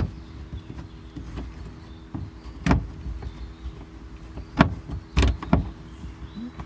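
Phillips screwdriver and hands working a screw and clip out of plastic interior trim in an SUV's cargo area: a few sharp clicks and knocks of tool and plastic, most of them about two-thirds of the way in, over a low steady hum.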